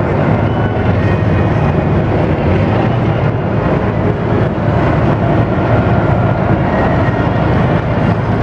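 Tanks driving past at close range: heavy diesel engines running loud and steady, without let-up.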